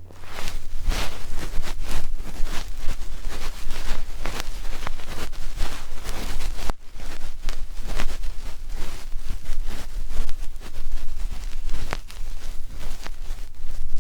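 Ear pick scraping and rubbing against a microphone, a continuous run of dense close-up scratching strokes several times a second over a faint low hum.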